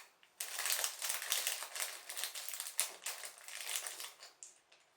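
Small plastic LEGO pieces clicking and rattling as hands rummage through a pile of loose bricks, a fast irregular clatter that stops shortly before the end.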